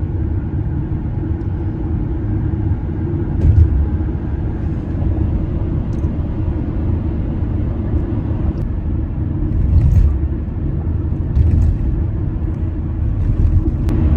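A car's engine and tyres making a steady low rumble on the road, heard from inside the cabin, with a few brief knocks.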